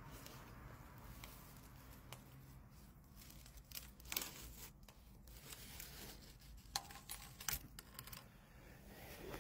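Faint scraping with scattered crackles and clicks as a long column of ice slides out of a metal drainpipe.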